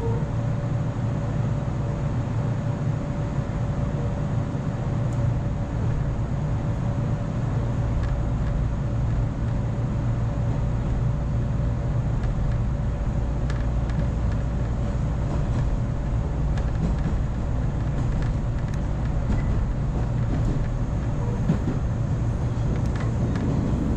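Inside a moving electric train: the running gear gives a steady low rumble, and a thin steady hum runs on top of it. The train is the Echigo Tokimeki Railway express made up of ex-JR Nanao Line cars.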